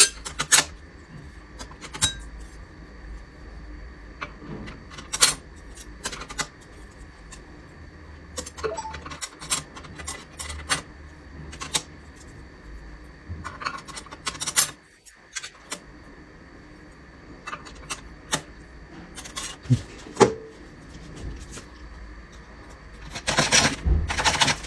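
Metal automatic-transmission parts clinking and tapping as clutch plates and a clutch drum are handled and fitted into the aluminium case: scattered sharp clicks, with a louder, continuous rattle near the end as the drum is worked into place.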